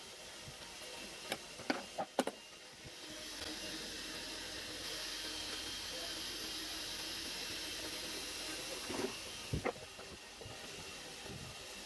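A few light clicks and taps of small metal horn parts and tools being handled and pulled apart on a bench, over a steady background hiss. A cluster of clicks comes in the first couple of seconds and another near the end.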